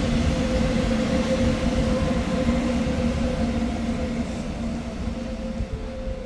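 Shinkansen train running on the station track, a steady electric motor hum over a rumble, fading slowly as it moves away.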